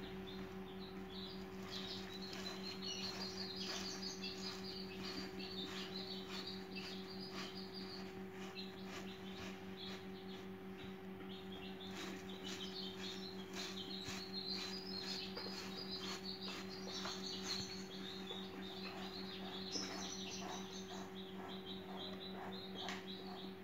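Small birds twittering in rapid chirping trills, in two long stretches, over a steady low electrical hum. Light clicks and rustles come from eggs being turned in rice-husk bedding.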